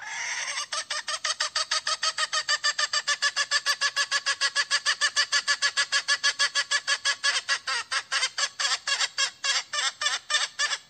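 Hen giving its rapid calling cry to attract a rooster: a short drawn-out opening note, then a fast even run of clucking notes, about five a second, spacing out slightly near the end.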